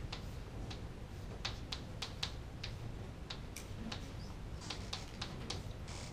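Chalk writing on a chalkboard: irregular sharp taps of the chalk tip, with a few short scratchy strokes near the end.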